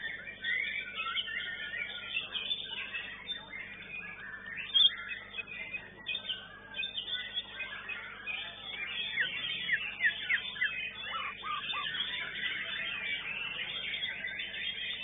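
White-rumped shamas (murai batu) singing: a dense, unbroken run of quick whistles, chirps and sliding notes, with one brief louder peak about five seconds in.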